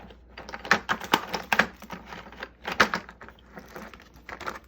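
Irregular light clicks and taps, a dozen or so sharp knocks of hard objects being handled, with no steady rhythm.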